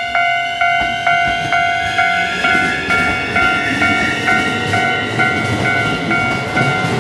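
A railway crossing warning bell strikes steadily about twice a second while a Keikyu New 1000 series electric train pulls away. From about two seconds in, the train's Siemens IGBT VVVF inverter whine rises in pitch as it accelerates, over a growing rumble of wheels on rail.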